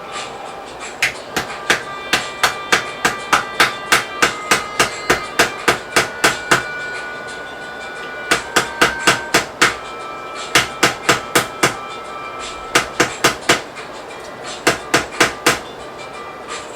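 Hammer blows in quick, even runs of about three a second, with short pauses between the runs, as parts of a flat-pack wardrobe are knocked together or nailed.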